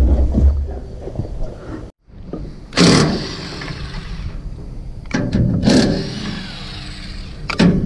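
Diesel engine of a 1995 Hitachi EX100-3 excavator running flat out, stuck at full throttle because its melted throttle cable leaves no throttle control and its muffler has rotted out. The sound cuts off suddenly about two seconds in, and after it comes a stretch of machine noise with two loud rushing bursts.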